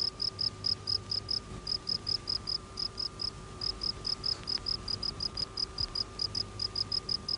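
Cricket chirping steadily, about five or six short, high chirps a second in runs broken by brief pauses, over a faint steady hum.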